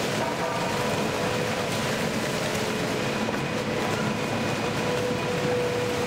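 WEIMA WLK15 single-shaft shredder with a 90 kW drive, its toothed rotor running under load as it tears PVB film into flakes: a steady, even mechanical noise with a constant tone running through it.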